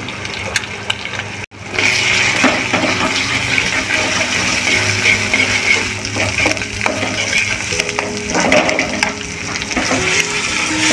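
Egg sizzling in hot oil with chopped onion, garlic and green chilli in a non-stick kadai, with light scrapes of a plastic spatula stirring and scrambling it. The sizzle cuts out for an instant about a second and a half in, then carries on steadily.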